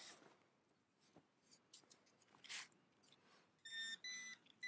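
Two short electronic beeps in quick succession from a handheld metal-detecting pinpointer, after a faint scrape of sand. The rest is near silence.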